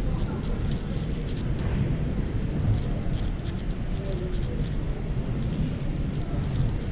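Quick runs of plastic clicking from a MoYu AoShi WR M 6x6 speedcube being turned during a solve, over a steady low hum of hall noise with a murmur of distant voices.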